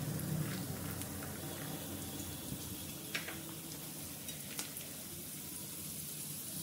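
Hot oil sizzling gently in an iron kadhai around mustard seeds, urad dal, chana dal and a dry red chilli frying for a tempering, a steady faint hiss with a couple of small pops.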